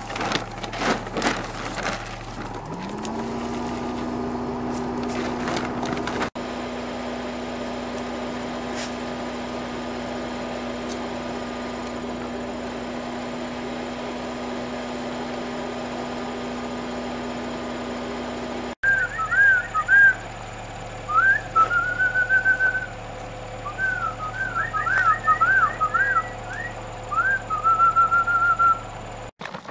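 A person whistling a run of short rising and falling notes and trills, the loudest sound here, through the last third. Earlier a steady low hum glides up in pitch about three seconds in and then holds. At the very start there are quick clicks as dry dog food is poured from a bag into a metal bowl.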